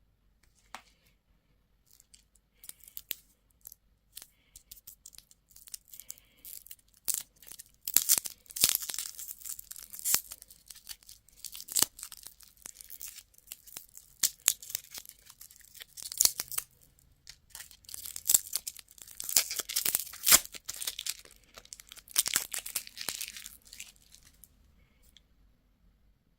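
Candy packaging being torn open and crinkled in a series of irregular crackly rips and rustles, heaviest in two stretches, one about a third of the way in and one near the end, with sharp clicks between.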